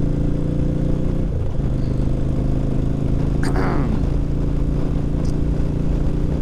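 Yamaha V-Star 1100 Classic's V-twin engine pulling steadily under way, its note dipping briefly about a second and a half in and again near the middle, with wind rush over the microphone.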